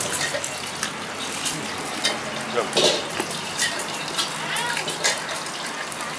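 Steady sizzle of stir-frying at a street-food wok, with frequent short sharp clinks of metal utensils.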